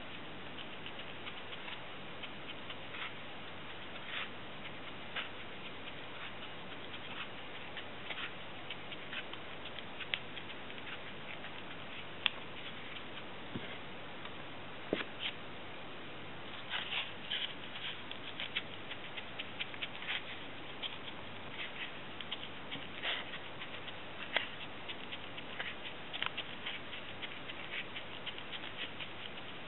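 Irregular light clicks, taps and scratching from hands working with small craft materials, over a steady hiss. There are busier runs of quick clicks in the second half.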